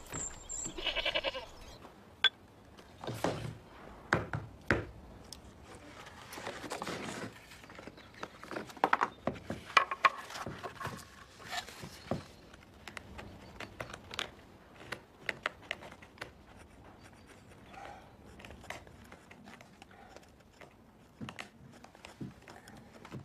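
A farm animal bleats once about a second in, followed by scattered knocks, clicks and rustles.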